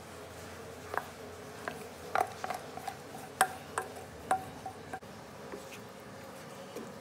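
A wooden spatula tapping and scraping against a steel vessel as cooked rice is knocked out of it into a pan: a run of sharp taps between about one and five seconds in, several with a short metallic ring. A faint steady hiss lies underneath.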